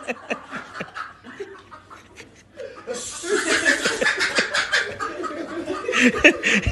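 People laughing in short chuckling bursts, with a sudden noisy rush of movement about three seconds in.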